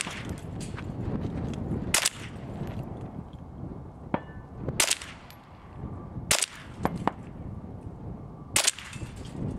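Five single gunshots, one right at the start and then four more spaced about one and a half to three seconds apart, fired at targets one at a time.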